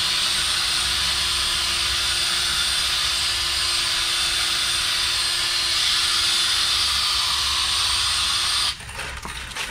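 Cordless variable-speed drill spinning a foam polishing pad against a plastic headlight lens, a steady hissing whine with one constant tone. It stops suddenly near the end.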